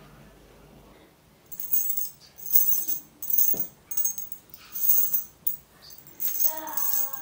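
A handful of small metal jump rings jingling together in a cupped palm, shaken in a series of short bright bursts, starting about a second and a half in.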